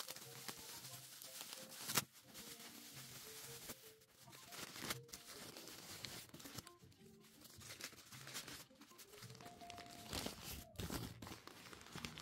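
Plastic wrap and newspaper crinkling and tearing as a carved stone skull is unwrapped by hand, with many short crackles. Soft background music plays underneath.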